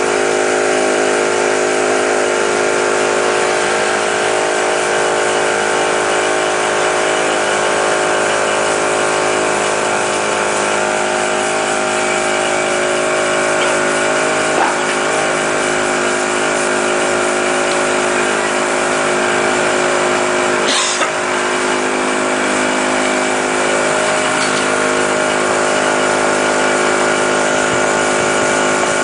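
An engine running steadily at a constant speed, with a brief sound about twenty-one seconds in.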